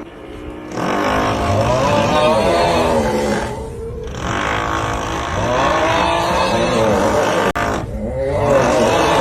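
A man's drawn-out, wavering 'uuuugh' groan-snore meme sound effect, repeated about every four seconds with short breaks between, over a steady drilling noise.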